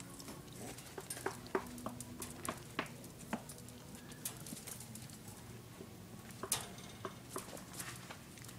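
Two dachshund puppies scuffling in a wire crate: irregular light clicks, scratches and knocks from their paws and claws on the crate and its floor, with a few brief small squeaks in the first few seconds.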